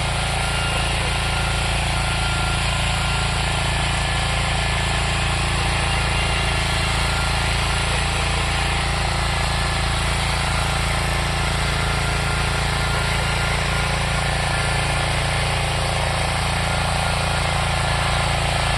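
Tractor engine running steadily under load while ploughing, with a rapid, even knocking beat.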